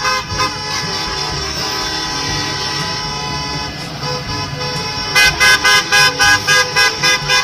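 School bus horns honking as the buses drive past, over the low rumble of their engines: long held blasts at first, then a fast run of short toots, about four a second, from about five seconds in.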